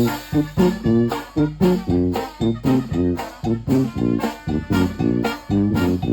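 Mexican banda brass band playing an upbeat tune, with brass and bass notes on a steady, bouncing beat.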